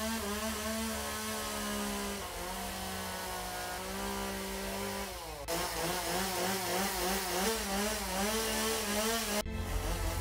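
Two-stroke gas chainsaw running at high revs while carving into a wooden log. Its pitch holds steady, dropping a step about two seconds in, then wavers quickly up and down from about halfway. Near the end the sound breaks off abruptly into a lower rumble.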